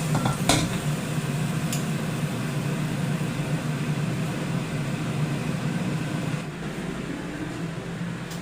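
Steady machine hum with hiss, with a sharp click about half a second in and another about two seconds in; the hum drops in level near the end.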